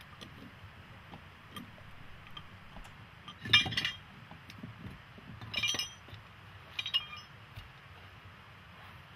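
Stones clinking against each other as loose dry stones are handled and set under a log building's bottom log. There are three sharp clinks about halfway through, with a few fainter ticks between them.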